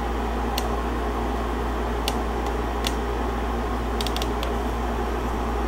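Steady low room hum with a faint hiss, of the fan or air-conditioning kind, and a few faint light clicks, including a quick little cluster about four seconds in.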